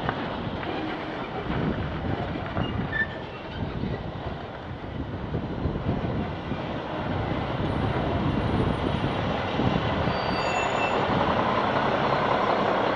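A semi tractor's diesel engine running close by with heavy street rumble, settling into a steady idle hum in the second half as the cab is reached.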